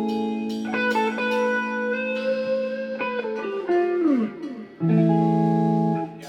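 Electric guitar playing sustained chords, with a downward slide about four seconds in, then a loud held chord that cuts off about six seconds in.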